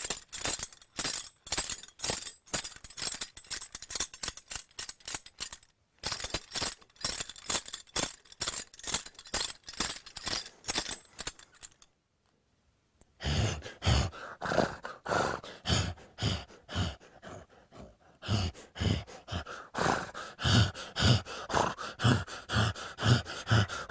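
Foley recording of a horse bridle: metal tack jingling and clinking in a quick walking rhythm, about four clinks a second. After a short pause about twelve seconds in, low hoof clops about twice a second join the jingling.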